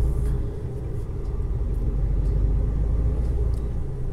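Semi-trailer truck's engine running while driving, heard from inside the cab as a steady low rumble.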